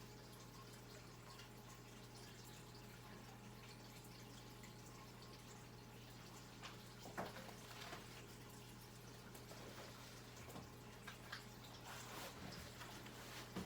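Near silence: room tone with a steady low hum and a few faint clicks and knocks in the second half.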